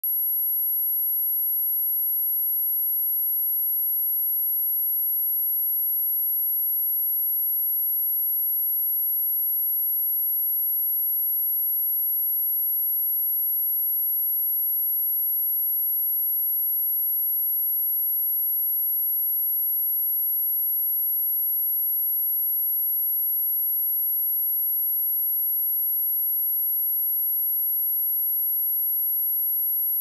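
A steady, unchanging pure sine-wave test tone at 11565 Hz, a single very high-pitched whistle-like note.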